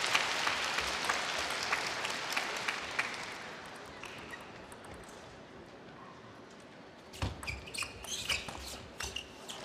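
A fading wash of crowd noise, then from about seven seconds in a quick run of sharp clicks: a table tennis ball struck back and forth and bouncing on the table in a rally.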